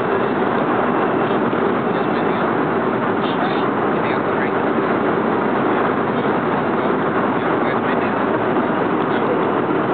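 Steady aircraft cabin noise in flight: an even, unbroken rush of engine and airflow noise.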